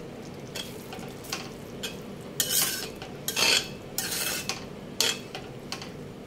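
Flat spatula stirring and scraping thick chilli chicken gravy in a metal pot: a run of irregular scrapes and swishes, the loudest about halfway through, over a steady low hum.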